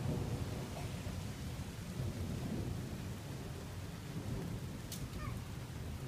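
Thunder rumbling low under the steady hiss of falling rain, loudest at the start and again about two seconds in.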